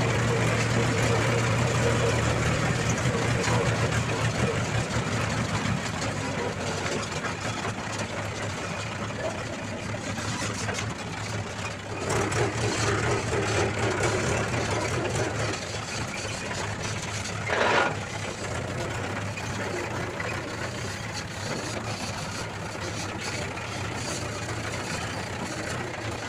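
Diesel tractor engine running with a steady low drone as the tractor hauls a load of soil along a dirt lane. A brief louder burst comes about two-thirds of the way through.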